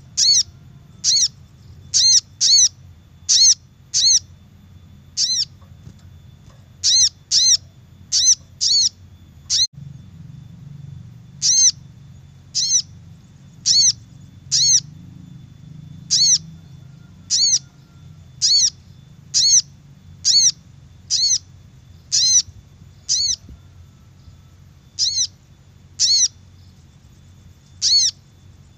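Little spiderhunter (sogok ontong) call played as a trapping lure: short, sharp, high notes repeated about once a second, often in quick pairs, over a faint steady high-pitched tone.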